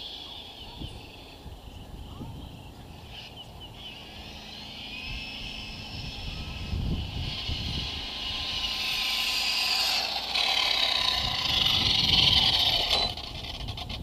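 Arrma Talion RC car on 6S, with a Castle 1515 brushless motor and a spooled drivetrain, whining at high speed on a full-throttle run, its pitch gliding up and down. The whine grows louder as the car comes back, is loudest a couple of seconds before the end, then drops off suddenly as it lets off.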